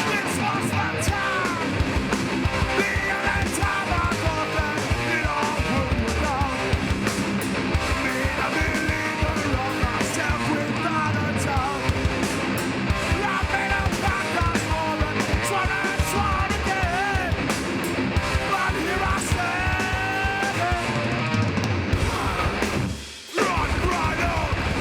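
A hardcore band playing live: distorted electric guitars, pounding drums and shouted vocals. The whole band cuts out for a moment about 23 seconds in, then crashes back in.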